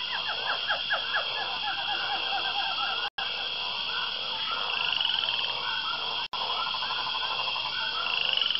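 Background nature ambience: a dense chorus of short chirping, croaking animal calls over a steady high drone, with two brief dropouts about three and six seconds in.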